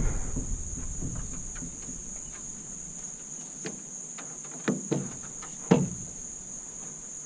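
Steady high-pitched chorus of insects, with a few short knocks, the two loudest about four and a half and five and a half seconds in.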